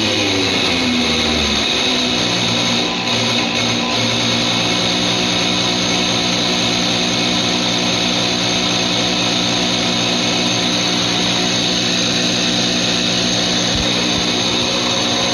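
Diesel injection pump test bench running a truck's inline fuel injection pump for calibration: a steady mechanical hum and whine over a hiss. Its pitch falls during the first second and a half, then holds steady.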